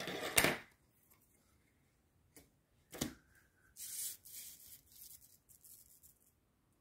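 Hands handling cut plastic sign letters on a paper layout template: a rubbing sweep at the start, a sharp tap about three seconds in, then a couple of seconds of light, hissy rubbing and scraping against the paper.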